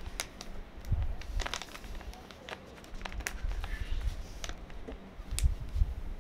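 Plastic snack bag and small foil packet crinkling and crackling as they are handled, with scattered sharp crackles over a low rumbling.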